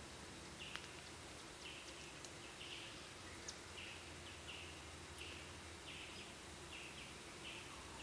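Faint, short buzzy chirps repeating unevenly about every half second to second over a steady outdoor hiss, with a few faint ticks.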